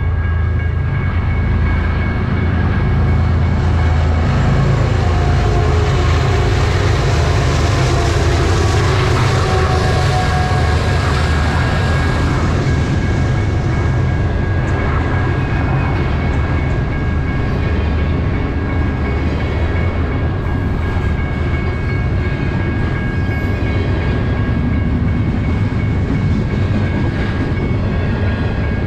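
BNSF double-stack intermodal freight train rolling through a grade crossing: a continuous rumble of the train and its wagons, heaviest from about four to twelve seconds in. The crossing bell rings steadily over it.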